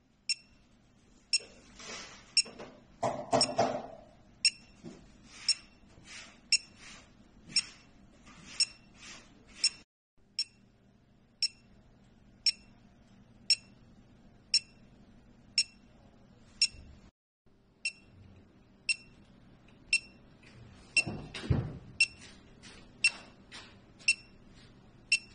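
m130b fingertip pulse oximeter giving a short, high beep about once a second, one beep per detected pulse of a simulated 60 bpm heart rate. A louder rustle comes about three seconds in and again about twenty-one seconds in.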